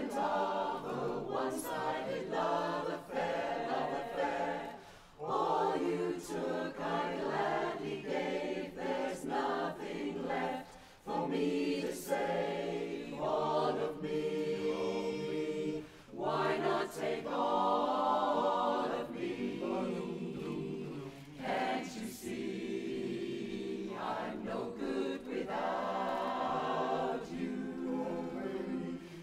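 Mixed men's and women's barbershop chorus singing a cappella in close harmony, in phrases with short breaks between them.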